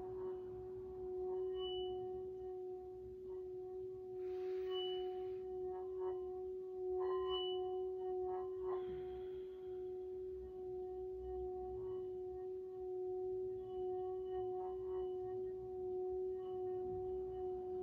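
Metal singing bowl being rimmed with a wooden striker: a steady, sustained ringing tone with a fainter higher overtone, swelling and easing slightly but never dying away.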